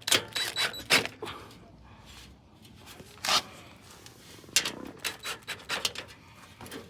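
Irregular clicks and knocks of parts and hardware being handled during assembly of a thickness planer's stand: a cluster about a second in, another a little after three seconds, and several more in the second half.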